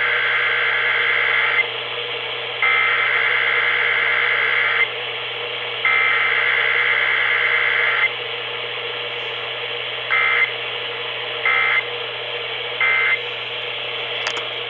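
Emergency Alert System SAME data bursts heard over a radio: three long buzzing header bursts of about two seconds each, then three short end-of-message bursts, with no attention tone between them, the pattern of a Required Weekly Test. Steady radio hiss and hum run underneath.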